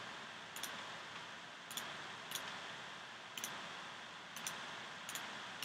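Computer mouse clicking, about half a dozen single sharp clicks spaced roughly a second apart, over a steady faint hiss.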